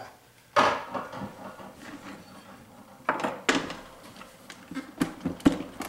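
Kitchen clatter of a glass mixing bowl and the food processor's plastic bowl being handled and set down on a granite countertop: several separate knocks and clinks, one about half a second in, a pair around three seconds in and a pair near the end.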